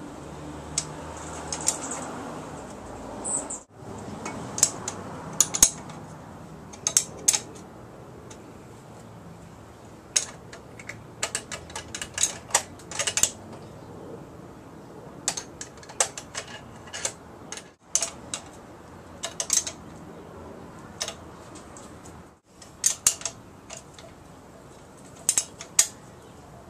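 Small metal parts and hand tools clicking and clinking irregularly, in short clusters, as hands fit a Holley 600 cfm four-barrel carburetor and its linkage on a small-block Ford V8.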